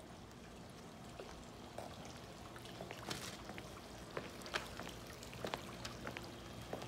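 Faint pool water trickling and lapping, with scattered small drips and splashes. A low steady hum joins about two and a half seconds in.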